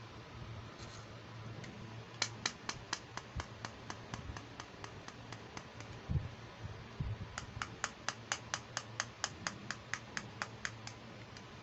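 Fingernails tapping quickly on a hard plastic toy case: two runs of even, sharp clicks about six a second, the first a little over two seconds long and the second about three and a half, with a couple of dull knocks from handling between them.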